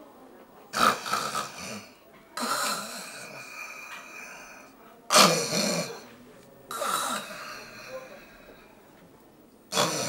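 A man snoring loudly in his sleep: five rough snores, one about every two seconds, with quiet gaps between them.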